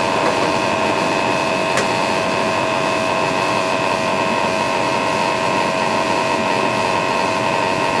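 Sample pump of a Testo 330-1 combustion analyzer running steadily during a flue gas test, a constant machine whine with several steady tones, which the mic picks up loudly, over the gas furnace running on high fire. A single sharp click just under two seconds in.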